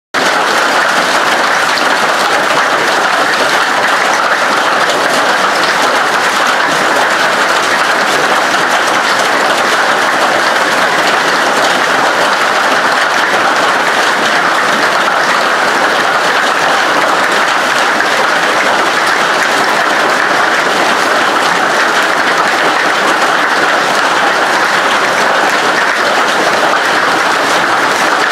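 Hail and heavy rain pelting down, a loud, dense, unbroken clatter.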